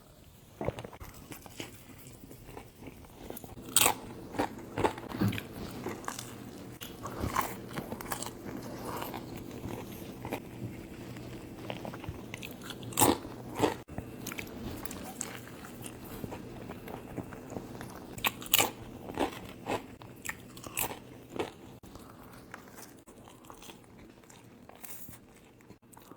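A person biting and chewing crunchy food close to the microphone, with irregular sharp crunches among steadier chewing.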